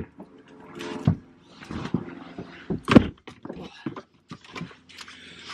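Knocks and thuds of someone climbing into an Audi with a dog and shutting the car door, the loudest thud about three seconds in, with rustling and handling noises between them.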